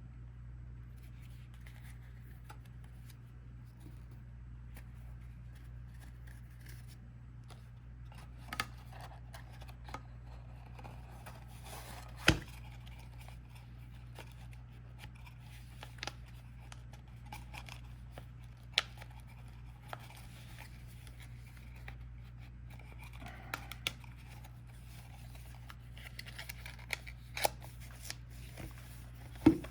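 Trading cards and their cardboard packaging being handled and put away: soft rustling and scraping with scattered sharp taps, the loudest about twelve seconds in, over a steady low hum.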